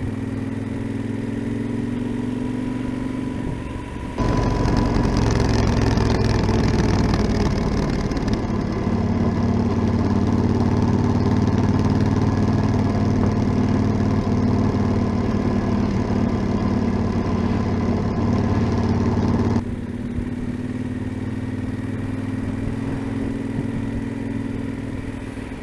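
Yamaha XT1200ZE Super Ténéré's parallel-twin engine running through an aftermarket Delkevic oval silencer while riding. It gets much louder about four seconds in, with the pitch rising as the bike pulls, holds there, and drops back abruptly to a lower, steady note a few seconds before the end.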